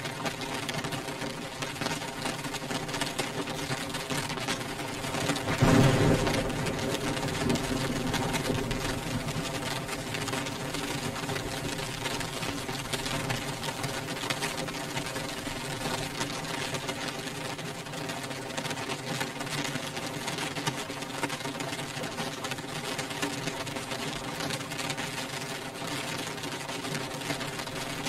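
Rain beating on a window pane: a dense, steady patter of drops on glass, with a brief louder surge and a low rumble about six seconds in. A faint steady hum runs underneath.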